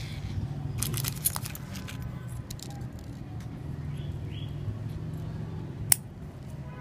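Steel scissors snipping the tag end of monofilament fishing line at a freshly tied hook knot: one sharp snip near the end, after brief rustling as the line is handled. A low steady hum runs underneath.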